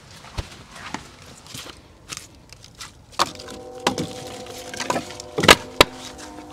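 Split oak and pecan firewood knocking together as pieces are picked up from a woodpile: a few sharp knocks in the second half, over a steady hum that starts about halfway in. Before that, scattered faint crackles from the stick-burner smoker's wood fire.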